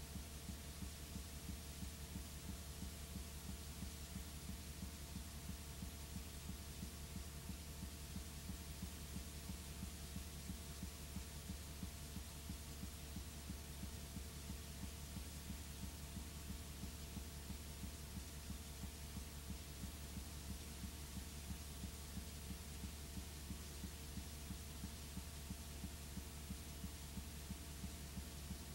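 Steady electrical hum with a layer of hiss and a fast, even low pulsing: the noise floor of a blank stretch of recording, with no programme sound.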